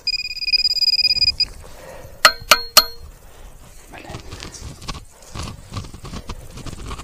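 Quest X10 Pro metal detector sounding a steady high target tone for about a second and a half, then three sharp ringing metallic clinks about a quarter second apart. After them comes irregular scraping and rustling of digging in sod and grass.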